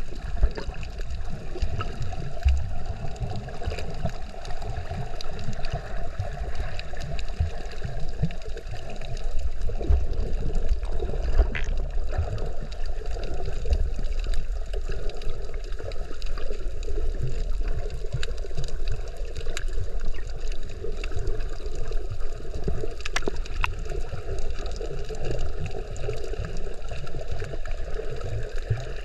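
Water sloshing and gurgling steadily around a snorkeler in the sea, with a low rumble and scattered faint clicks.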